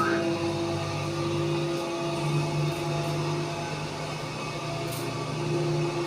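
A Gartec Aritco platform lift's electric drive humming steadily while the platform travels, a layered hum that steps up slightly in pitch about two seconds in.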